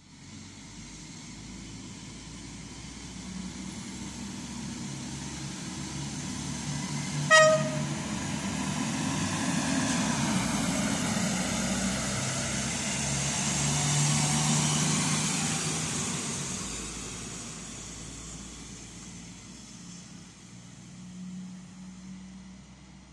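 PKP Intercity electric multiple unit passing through a station: one short horn blast about seven seconds in as it approaches, then the noise of the train going by swells, peaks and fades away as it recedes.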